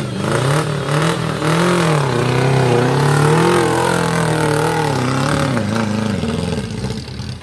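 Off-road 4x4's engine revving, its pitch rising and falling repeatedly, then dropping away near the end.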